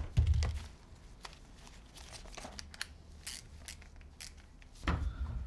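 Scattered light clicks and ticks of a small torque wrench being handled and set while a 5 mm socket is fitted, with a dull knock at the start and another near the end.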